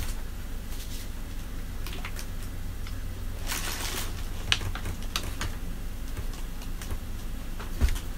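Paper and envelope being handled: soft rustling and small clicks and taps, with a longer rustle about three and a half seconds in and a sharp tap near the end.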